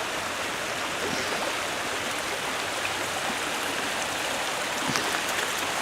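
Floodwater running: a steady rush of water noise with no breaks.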